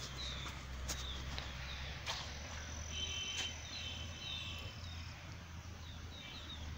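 Small birds chirping: short, high chirps that slide down in pitch, repeated every second or so, with a brief buzzier call about three seconds in, over a low steady rumble.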